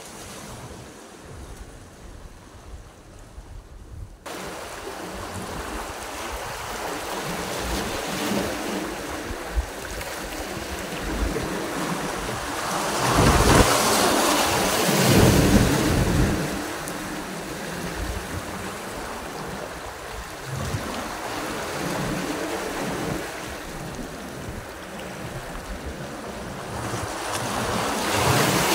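Sea waves washing and breaking over rocks at the waterline, a steady rush that jumps up about four seconds in and swells loudest twice, around the middle and again near the end.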